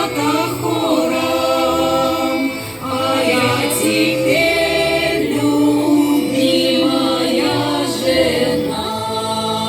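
A women's vocal ensemble singing a Russian folk-style song in chorus, with long held notes over a steady bass accompaniment.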